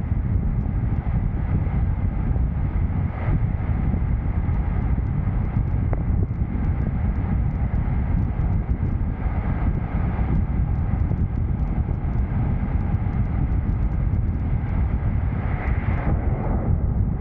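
Steady rumble of a moving vehicle's road and wind noise, with wind buffeting the microphone.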